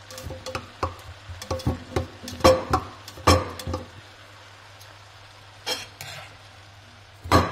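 A spatula knocking and scraping against a non-stick wok as cooked rice is stirred into the vegetables, with a light sizzle. There is a quick run of knocks over the first few seconds, then two single knocks later on.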